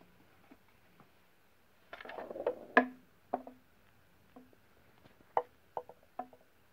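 Knocks and a short scrape on a hollow white cat puzzle box: a scraping rustle about two seconds in, one sharp knock just before three seconds, then a handful of lighter irregular knocks, many of them with a brief hollow ring from the box.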